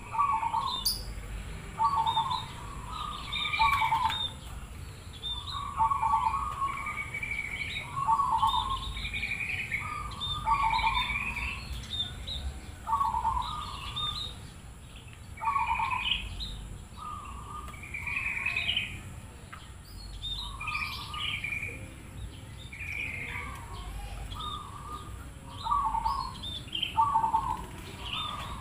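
Zebra dove (perkutut) singing its cooing song, short phrases repeated every second or two, with higher-pitched chirps between them.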